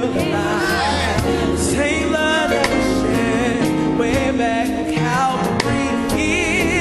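A gospel choir and band performing, with singing that wavers and runs over a drum beat and bass.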